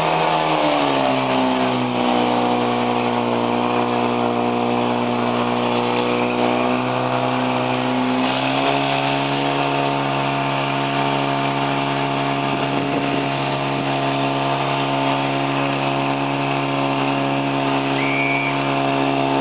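Portable fire pump's engine running at high revs while pumping water to the hose lines. Its pitch drops about a second in and climbs again about eight seconds in, then holds steady.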